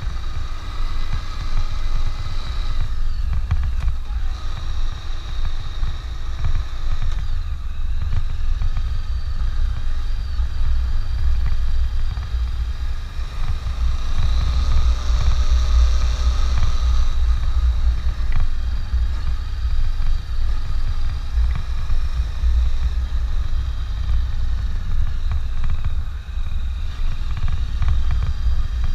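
Honda CB500X's parallel-twin engine running while being ridden, over a heavy, continuous low rumble, with its tone shifting now and then.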